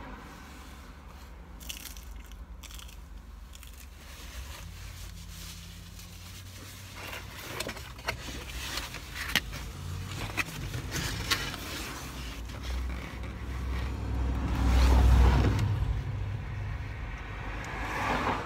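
Chewing on pizza, then a cardboard pizza box being lifted and handled, with scrapes and sharp clicks in the middle and a loud low rumble of handling about three-quarters of the way through.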